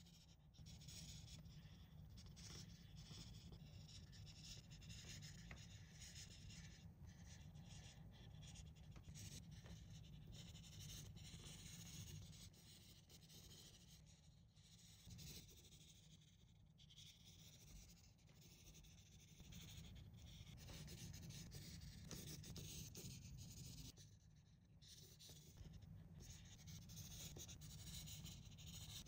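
Faint scratching of a Crayola Color Wonder marker's felt tip colouring on Color Wonder paper, in runs of short strokes with brief pauses, over a low steady hum.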